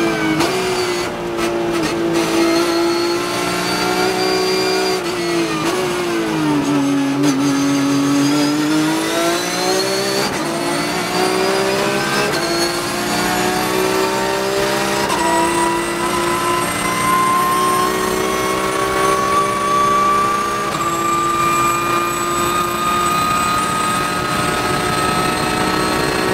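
Porsche 911 GT3 Cup (991.2) race car's flat-six engine heard from inside the cockpit. It eases off and the pitch sinks through a slow corner, then at full throttle it shifts up through the gears, ending in a long, steady climb in pitch in top gear.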